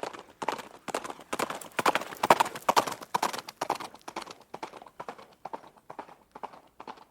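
A horse's hooves clip-clopping in a steady rhythm, about three to four strikes a second, growing louder to a peak around the middle and then fading away.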